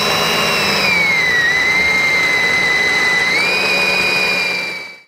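Cordless drill running a 3/16-inch bit through a roof-rack foot and the truck's sheet-metal roof: a steady, high motor whine that sags a little in pitch as the bit bites into the metal, climbs again about three seconds in, and fades out at the end.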